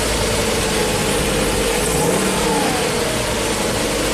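Ford E450's 6.8-litre V10 running rough and misfiring, with cylinders 8 and 9 dead and low compression in number 9. About halfway through the pitch rises and falls briefly in a short rev.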